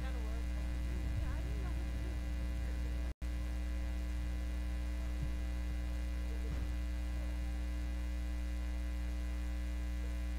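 Steady electrical mains hum from the sound system, with faint murmuring voices in the first couple of seconds. The audio cuts out for an instant about three seconds in.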